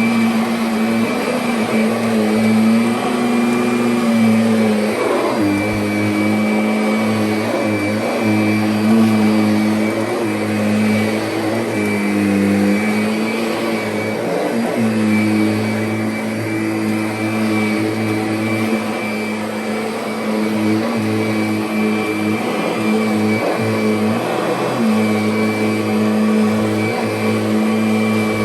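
Kirby Sentria upright vacuum cleaner running over carpet: a steady motor hum with a high whine. The pitch dips briefly and recovers every few seconds as the machine is worked across the pile.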